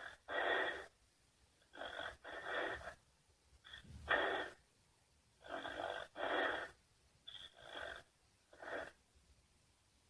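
Loud snoring: short, breathy snores in a steady rhythm, mostly two close together, a new one coming about every one and a half to two seconds.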